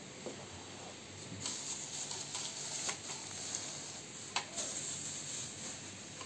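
Clear plastic wrapping crinkling and rustling as it is pulled off a ring light, with a few sharper crackles. The rustling picks up about a second and a half in and eases near the end.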